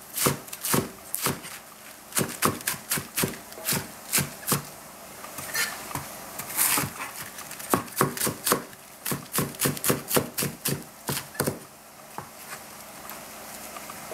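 Chinese cleaver chopping napa cabbage on a plastic cutting board: a quick, steady run of sharp knocks as the blade cuts through the leaves and strikes the board, stopping about three-quarters of the way through.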